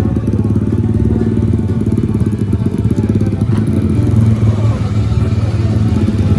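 Motorcycle engine running steadily near idle, a dense low pulsing.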